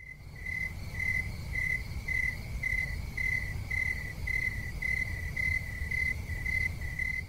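A cricket chirping steadily, about two short chirps a second, over a low background rumble, as night ambience.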